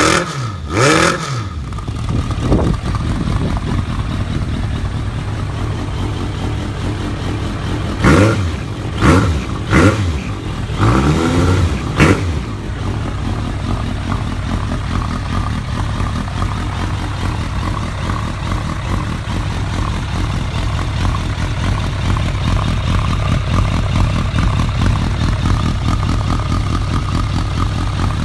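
Suzuki GS1200SS inline-four motorcycle engine running, revved briefly twice at the start. About eight seconds in it is given four quick throttle blips over roughly four seconds, each falling back to idle, and then it idles steadily for the rest.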